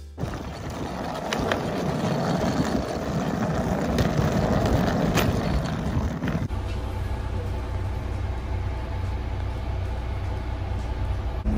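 Hard-shell suitcase wheels rolling over rough asphalt: a dense rumble with a few sharp clicks. About six seconds in it gives way to the steady low hum of a city bus's engine idling, heard from inside the bus.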